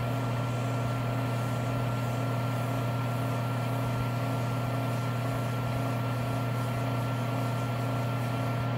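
Small Harbor Freight wood lathe running steadily, a constant low hum with a thin high whine over it, while a micro-mesh pad is held against the spinning acrylic pen blank.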